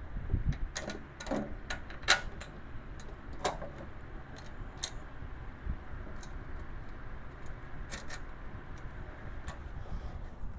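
Scattered, irregular metal clicks and clinks of bolts, nuts and washers being handled and fitted while the casters are bolted onto the tool cart.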